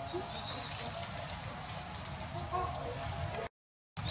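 Outdoor ambience: a steady high insect hiss over a low rumble, with a few faint short chirps. The sound cuts out completely for about half a second near the end.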